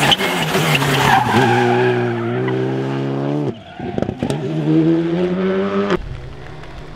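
Rally car engine revving hard and holding a high, steady note. About three and a half seconds in it lifts off with a few sharp cracks, then revs up again. About six seconds in it cuts off to a quieter outdoor hush.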